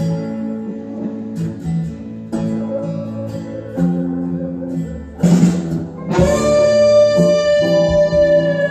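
Electric guitar playing a lead solo over sustained guitar chords, the chords changing every second or so. About six seconds in, a single long note is held and sags slightly in pitch near the end.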